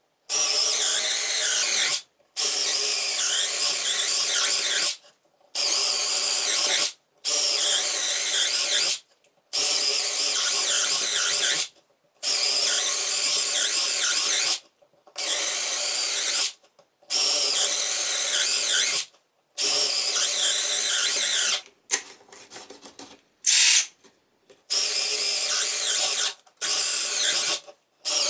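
Parkside Performance 12V brushless cordless drill driver drilling holes into wood one after another: about a dozen steady runs of two to three seconds, each with a short pause between. About three-quarters of the way through, a brief weak, stuttering stretch comes before the drilling picks up again. This is the drill running its 4 Ah battery down towards the point where the battery protection cuts it off.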